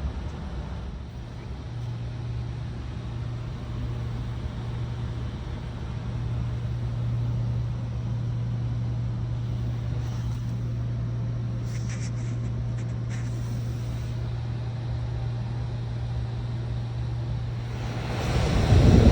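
HVAC unit running with a steady low hum, the sound the owner is recording as a problem. A few faint clicks come about two-thirds of the way through, and a louder rushing noise swells in near the end.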